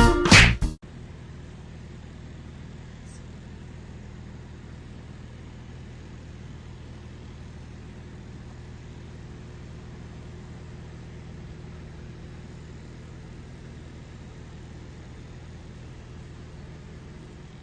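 Jazz music cuts off just under a second in, giving way to a steady low bass drone from a loudspeaker playing tones between 40 and 80 Hz beneath a cornstarch-and-water mix.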